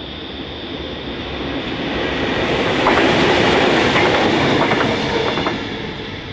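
Two Pacific National 90 class diesel locomotives running light past close by. Their engine noise swells to a peak about three seconds in, with wheels clicking over rail joints, then fades as they pass.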